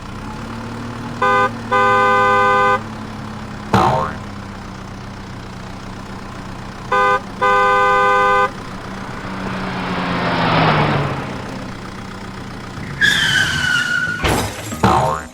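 Cartoon vehicle sound effects: an engine running steadily while a horn honks short-then-long twice, with a knock about four seconds in, a swelling whoosh around ten seconds, and sliding tones and knocks near the end.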